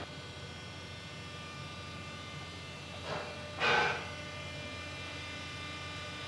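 Steady hum of a fishing boat's engine heard below deck. Two short sounds come a little past halfway, the second louder.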